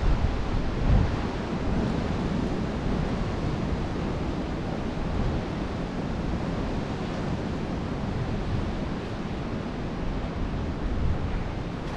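Wind buffeting the camera's microphone: a steady, uneven low rushing noise, with a stronger gust about a second in.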